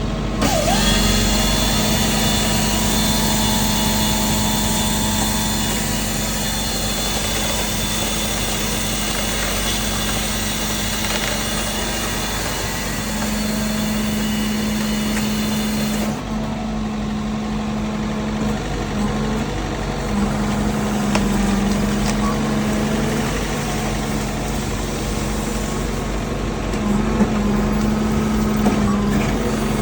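The loader's engine runs steadily under a tree-cutter attachment. A higher whine rides over it for the first half and stops suddenly about halfway through.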